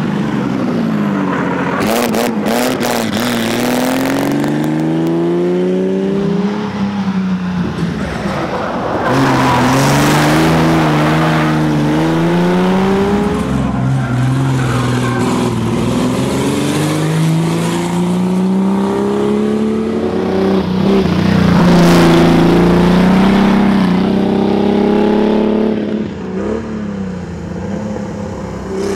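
The 1941 GMC Jimmy Special's engine driven hard, heard from inside the car: its pitch climbs in long sweeps under throttle and drops back as the driver lifts and brakes, again and again. Short bursts of road and tyre noise come in a few times.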